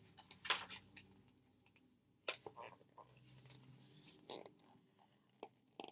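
Faint rustling and soft crinkles of a picture book's paper pages being turned and handled, in several short bursts.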